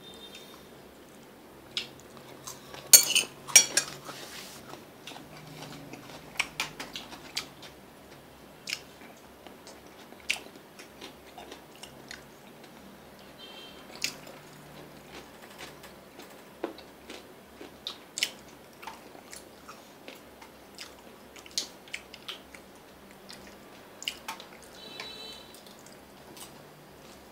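Chopsticks clicking and scraping against ceramic plates and bowls during a meal, with chewing between the clicks. A quick run of sharp clatter comes about three seconds in; after that come scattered single clicks.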